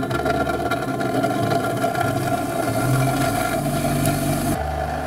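Einhell TH-BG 150 bench grinder running with a steady motor hum.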